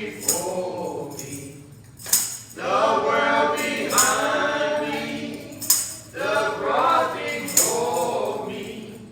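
A church choir and congregation singing a slow gospel hymn, with a tambourine struck once on each slow beat, about every two seconds.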